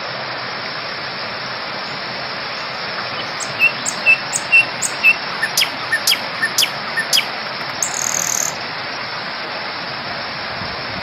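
Steady rush of falling water from an artificial garden waterfall, with birds chirping over it: a series of short chirps, then several quick downward-sweeping calls, and a brief high buzz near the end.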